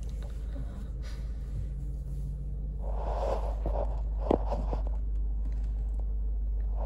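Belanger Kondor touch-free car wash running, heard from inside the car: a steady low hum, then water spray hitting the car from about three seconds in, with a sharp knock a little after four seconds.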